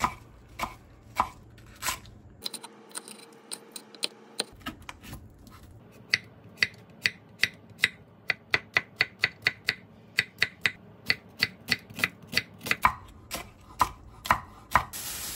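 A kitchen knife chopping on a cutting board: a run of sharp knocks, slow at first, then quickening to about three or four strokes a second midway.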